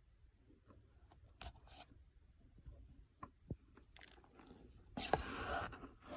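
Cornstarch crunching and squeaking: scattered small crackles, then a louder, denser crunch about five seconds in.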